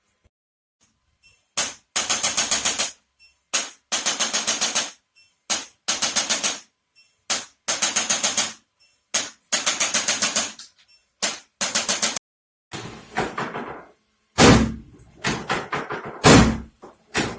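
A handheld percussive adjusting device firing in bursts of rapid taps, about eight a second. Each burst lasts about a second and follows a brief shorter one, and the pair repeats about five times. Irregular knocks and thumps follow in the last few seconds.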